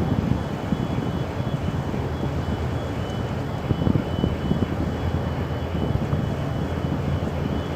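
A steady low engine drone, with wind gusting on the microphone.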